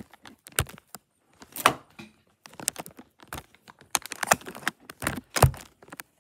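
Plastic Lego bricks clicking and clattering as they are picked up and pressed onto a baseplate: an irregular run of sharp clicks and knocks, with a few louder thuds.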